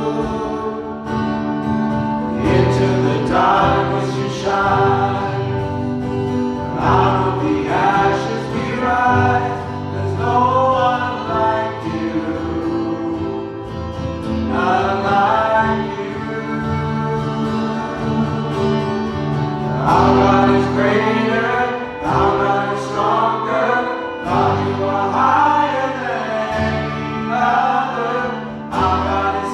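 A worship band playing a slow song, with voices singing sustained phrases over guitar and steady chords.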